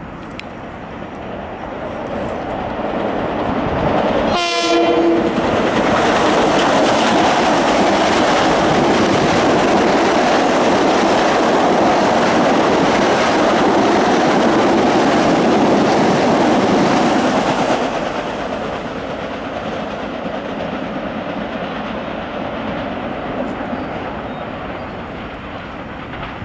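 Long Island Rail Road M7 electric multiple-unit train approaching and running through a station at speed without stopping. It gives one short horn blast about four seconds in, followed by loud wheel-on-rail noise for some twelve seconds as the cars pass. The noise fades as the train recedes.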